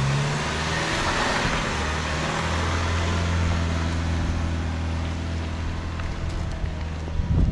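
2021 Ford Bronco's engine running at crawling speed as the vehicle moves past and away on a dirt trail: a steady low hum with tyre noise over the dirt. A few knocks come near the end.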